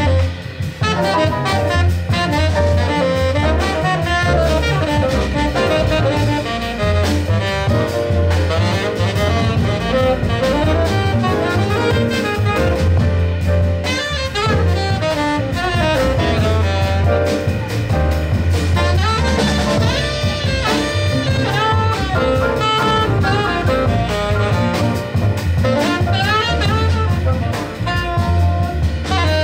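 Live small-group jazz: a saxophone solo of quick melodic runs over plucked upright bass and a drum kit with cymbals.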